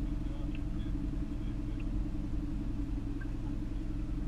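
Boat's outboard motor running steadily, a continuous low drone.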